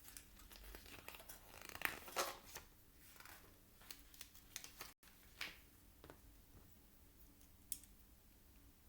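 Plastic Lego bricks being handled and pressed together: scattered light clicks and rustling, busiest in the first few seconds.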